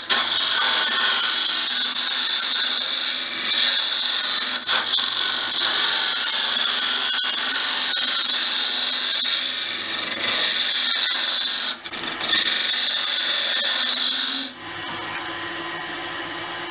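Robert Sorby hollowing tool cutting inside a sycamore hollow form spinning on a wood lathe: a loud, steady hissing scrape as the tool is worked backwards and forwards. It breaks off briefly twice near the end and stops about two seconds before the end, leaving the lathe running with a quieter low hum.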